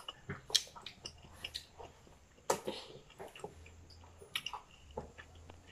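Close-up eating sounds: wet chewing and lip smacks from someone eating steamed momo dumplings, heard as scattered short clicks and smacks.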